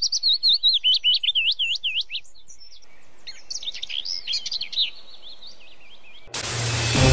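A songbird singing in two bouts of quick, high, swooping chirps with a short pause between. Near the end, music cuts in suddenly and loudly.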